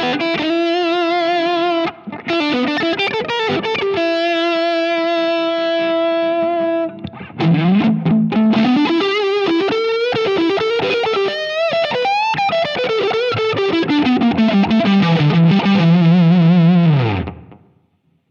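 Electric guitar, a Fender Stratocaster played through a Nux MG300 amp-modelling unit with a distorted lead tone. It plays held notes with vibrato and bends, then a rising and falling run, and ends on a held low note that cuts off about a second before the end.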